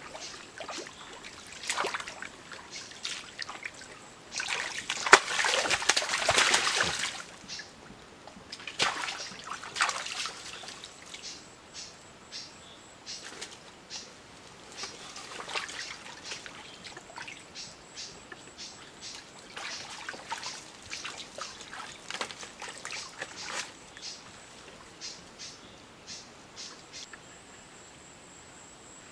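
Shallow creek water splashing and trickling in many short splashes, with a louder stretch of splashing about five seconds in.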